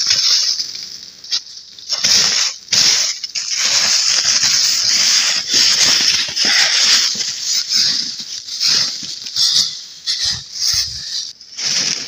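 Crunching snow and rustling of a plastic tarp being handled and pulled free, in irregular bursts with short pauses.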